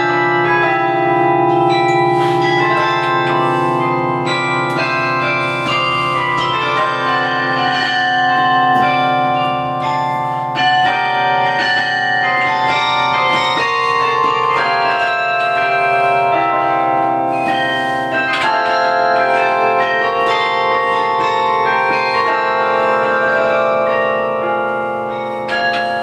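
A 47-bell Paccard carillon played by hand from its baton keyboard: a quick, continuous run of bell notes, several at once, each ringing on under the next.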